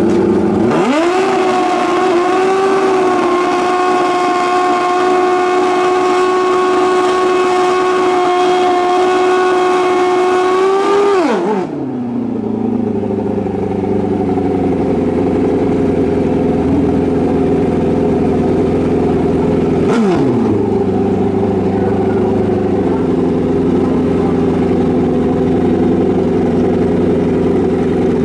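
Drag-racing motorcycle engine revved up hard and held at a steady high pitch for about ten seconds, then dropped to a lumpy idle. Later there is a single quick blip of the throttle, and the engine settles back to idle.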